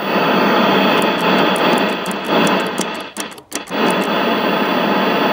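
Vintage tube TV set's speaker hissing loudly with dead-channel static. The hiss swells in at the start, crackles irregularly and cuts out briefly about three and a half seconds in, as the faulty power switch makes intermittent contact.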